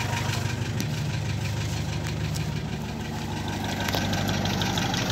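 Large vehicle engine idling steadily, a low even rumble.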